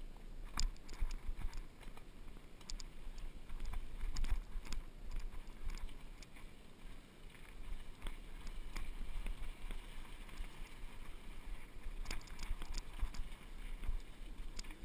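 Wind rumbling on the microphone of a camera mounted on a Fuji hardtail mountain bike descending a rocky dirt trail, with scattered sharp clicks and knocks as the bike rattles over stones and roots, bunched about half a second in and again near the end.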